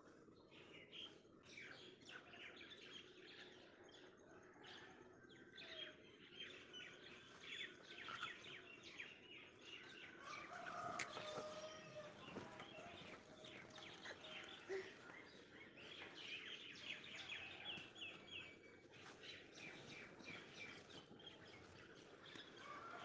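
Faint birdsong: many short chirps from small birds, over a low outdoor background hiss.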